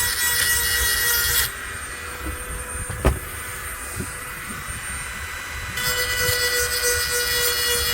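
A handheld rotary grinding tool runs steadily throughout. It grinds against the steel teeth of a hedge trimmer blade twice: once at the start for about a second and a half, and again from about six seconds in. Between the two, the tool runs lightly and there is one sharp click.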